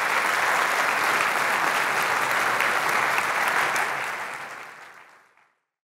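Audience applauding, steady at first and then fading out about four to five seconds in.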